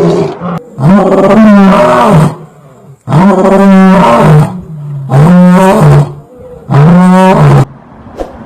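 Lion roaring: four loud roars in a row, each a second or so long, rising then falling in pitch, with short pauses between them.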